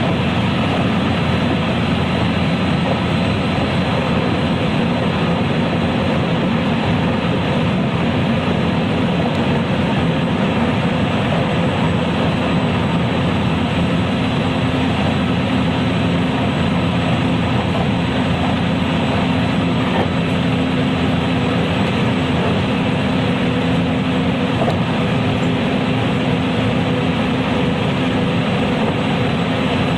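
JR West 223 series electric multiple unit running at a steady speed, heard from inside its motor car: an even rumble of wheels on rail with a faint steady drive hum.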